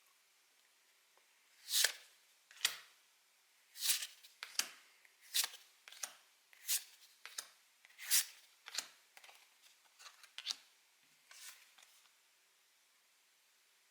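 Pokémon trading cards being flipped through one at a time, each card sliding off the stack with a short papery swish. About a dozen come in quick succession, starting about two seconds in and stopping near the end.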